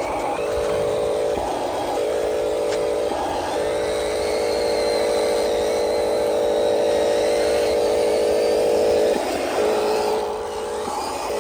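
Huina 1501 RC truck running: a steady motor-and-gear whine, broken by short rougher patches a few times.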